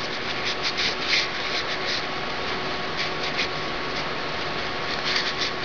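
Paper towel rubbing and rustling in short, soft strokes as paint is wiped off, over a steady background hiss.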